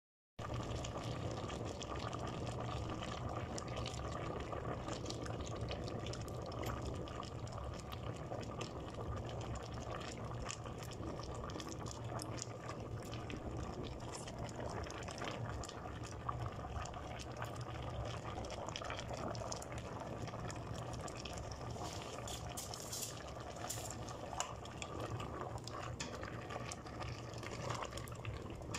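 Meat stew simmering and bubbling in a stainless-steel pot: a steady bubbling with many small pops and crackles, over a steady low hum.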